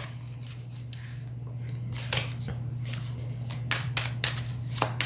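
A deck of oracle cards being shuffled by hand: scattered soft flicks and slaps of cards against each other, over a steady low hum.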